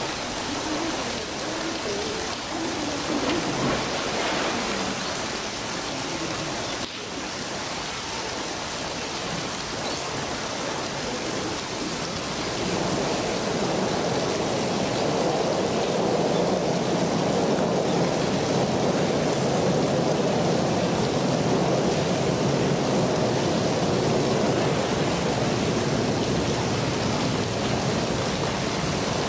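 Steady rushing water, growing louder about twelve seconds in.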